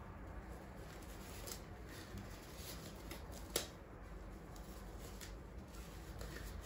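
Disposable examination gloves being pulled onto the hands: soft rubbery rustling and handling with a few light clicks, and one sharp snap about three and a half seconds in.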